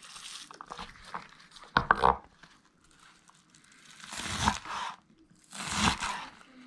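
Kitchen handling noise: three short bursts of crinkling rustle, the first with a few sharp clicks about two seconds in.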